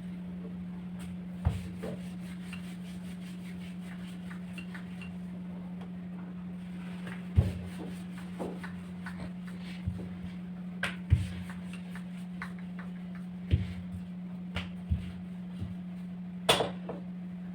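Scattered knocks and clinks of kitchen utensils and dishes, about eight in all, over a steady low hum.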